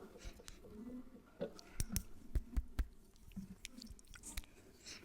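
Close-miked ASMR sounds without words: scattered sharp clicks, taps and mouth sounds, with a few short low hums.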